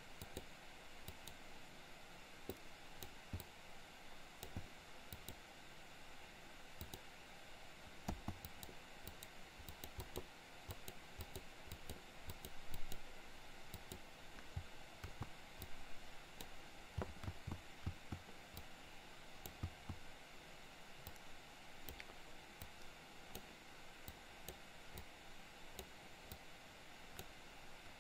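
Scattered, irregular clicks and taps of a computer mouse and keyboard in use, over a steady faint background hiss.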